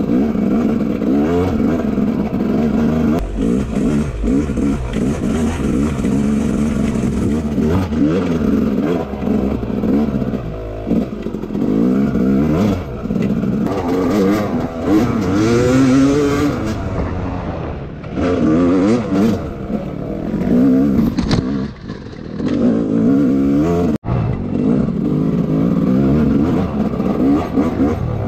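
Dirt bike engine being ridden hard on a trail, revving up and easing off again and again, with the rattle and scrape of the bike over rough ground.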